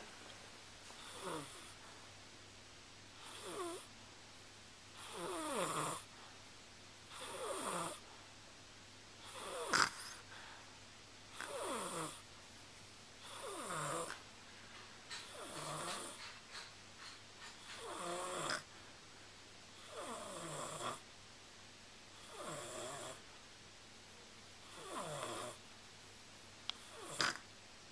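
Steady sleep snoring: about thirteen snores roughly two seconds apart, each one sliding down in pitch as it goes.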